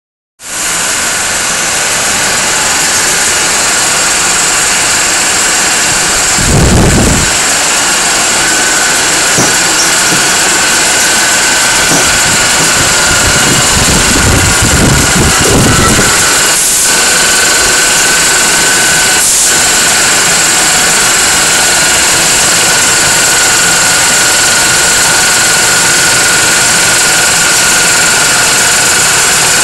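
Scuba breathing-air compressor and the diesel generator powering it, running steadily together with a constant high whine over the engine noise. Brief low rumbles come about 7 seconds in and again around 14 to 16 seconds.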